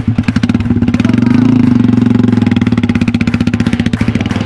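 Custom bobber motorcycle's single-cylinder engine running with a rapid, even firing beat, revving up about a second in as it pulls away.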